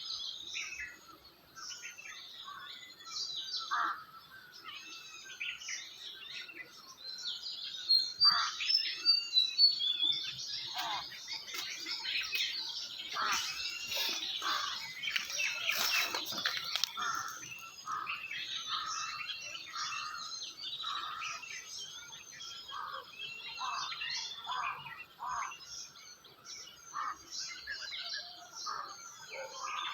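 Many birds chirping and calling together in a dense, overlapping chorus of short whistled notes, with a louder run of quick notes about eight seconds in.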